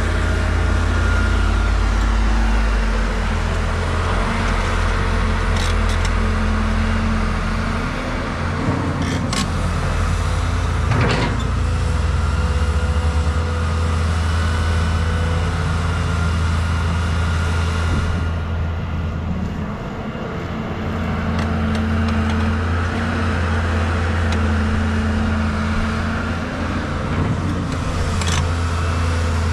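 Caterpillar hydraulic excavator's diesel engine running steadily under digging load, with a few short knocks around the middle.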